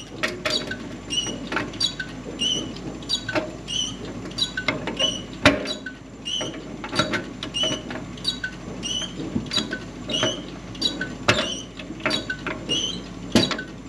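Pliers turning the holding nut on a dryer push-to-start button's threaded body: irregular sharp metal clicks, with a short high squeak repeating about every 0.7 s.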